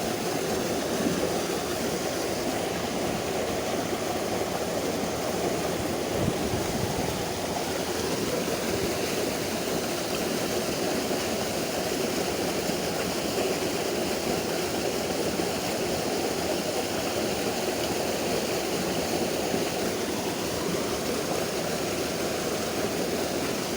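Steady rushing of a small stream's flowing water, unbroken throughout.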